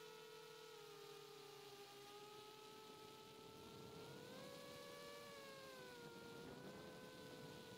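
Faint whine of an iFlight Chimera 7 Pro FPV quadcopter's motors, its pitch following the throttle: sagging at the start, climbing about four seconds in and easing down again around six seconds.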